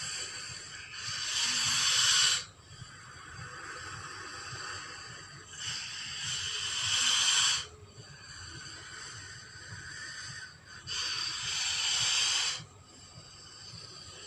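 Giant-snake hissing sound effect made for a Titanoboa: three long, loud hisses, each lasting one and a half to two seconds, about five seconds apart, with a quieter hiss continuing between them.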